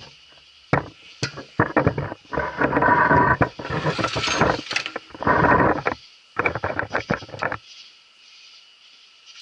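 A hand-turned reamer cutting the worn spindle-bolt threads out of a Model T Ford front axle in a Stevens axle fixture: uneven bursts of metal scraping with sharp clicks between strokes, stopping about seven and a half seconds in.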